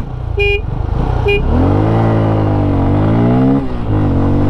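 Two short horn beeps, then a single-cylinder Bajaj Pulsar motorcycle engine launching hard in a drag race. The revs climb, drop sharply at a gear change about three and a half seconds in, then climb again.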